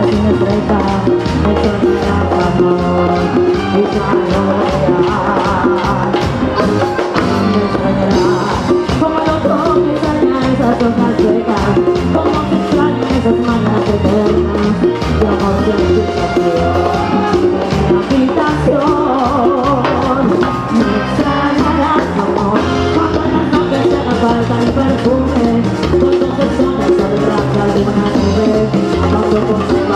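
A live band playing Latin dance music with a steady beat and percussion including timbales, with a woman singing into a microphone over the club's loud PA system.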